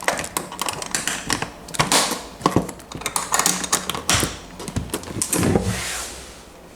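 Clicks, knocks and light rattles of small objects being handled in a small room, with a brief rustling swish near the end.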